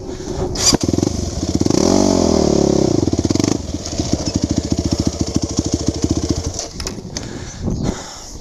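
Quad (ATV) engine revving as the quad pulls away, its pitch rising and then falling about two seconds in, then running steadily before easing off near the end.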